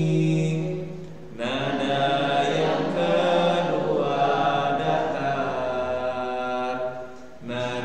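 A man chanting Qur'anic recitation in the bayati melody, holding long drawn-out notes and pausing for breath about a second in and again near the end. It demonstrates the 'nada mina' pattern of rising, level, slanting and rising tones used in tahsin practice.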